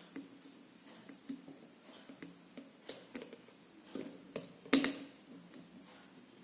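Light clicks and taps of robot car chassis parts being handled and fitted together, as the top plate is lined up over the sensor mounts, with one louder knock a little under five seconds in.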